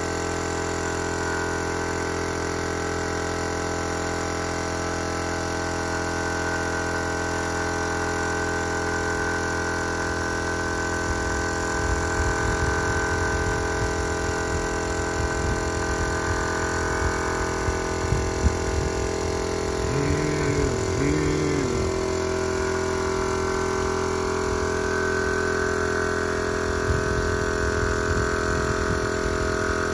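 Small piston air compressor running steadily, feeding the paint spray guns. An uneven low rumble comes and goes from about a third of the way in, and two short rising-and-falling tones sound about two-thirds through.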